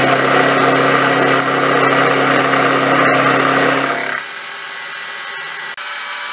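Sieg SX4 bench mill's end mill taking a climb-milling pass: a loud, steady cutting noise over the spindle motor's hum. About four seconds in the cut ends and the noise drops, with the spindle still running more quietly.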